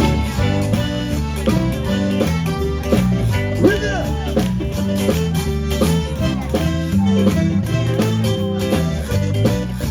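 A band playing an instrumental passage: electric or acoustic guitar over a stepping bass line and a steady beat, with a guitar note bent up and back down about four seconds in.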